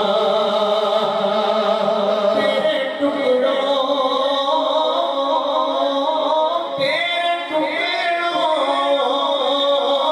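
Male voice singing an Urdu naat without instruments, in long held, wavering notes; new phrases begin a couple of seconds in and again about two-thirds of the way through.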